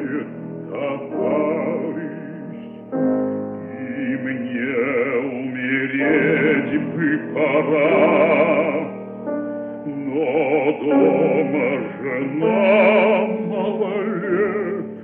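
A bass voice sings a German art song with vibrato over piano accompaniment. It is an old recording with a narrow, dull sound.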